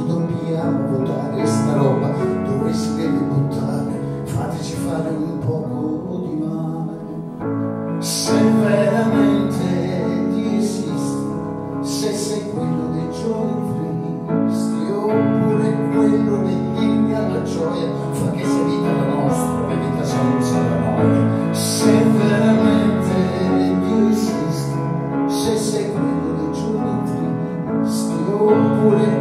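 Small band playing live, with piano, double bass, guitar and drums, and cymbal strokes over the held chords.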